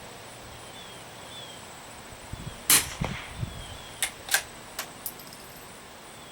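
A single shot from a Remington 513T .22 LR bolt-action target rifle a little under three seconds in, followed by four short, sharp clicks over the next second or so as the bolt is worked.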